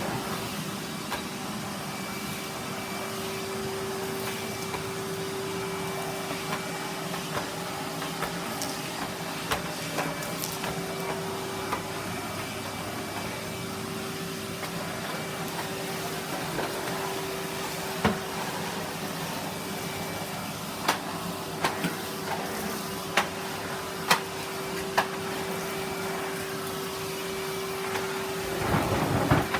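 Vacuum cleaner running steadily with a constant whine. Several sharp knocks come in quick succession in the second half.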